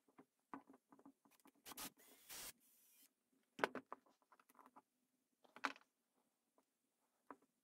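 Handling noises from a small wooden bending jig being worked by hand: scattered light clicks and taps of wood and screws, a brief scraping rustle about two seconds in, and two sharper knocks about four and six seconds in.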